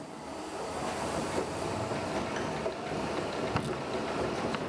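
A printing press running: a steady mechanical noise with a faint hum and a few sharp clicks.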